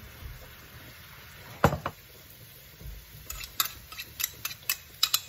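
Fish-sauce glaze sizzling faintly in a wok under fried chicken wings. One sharp knock about 1.7 s in, then a run of light clicks and taps of a spatula and tongs against the wok and bowl in the second half.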